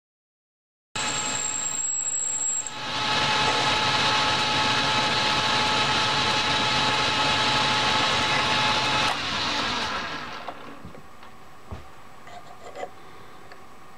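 Metal lathe running and taking a turning cut on a small metal rod: a steady machine whine under the hiss of the cut. It starts abruptly about a second in and grows louder a couple of seconds later; about nine seconds in the lathe is switched off and spins down, leaving a few small clicks.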